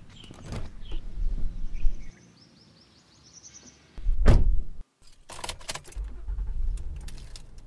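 A car door shuts about four seconds in, keys jingle in the ignition, then the car's engine starts and runs with a steady low rumble.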